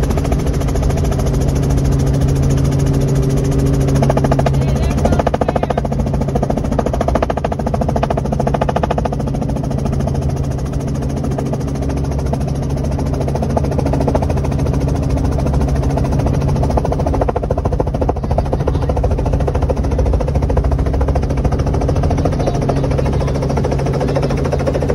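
Small helicopter's engine and rotor running, heard from inside the cabin: a steady, loud hum with a low rumble, shifting slightly about four or five seconds in.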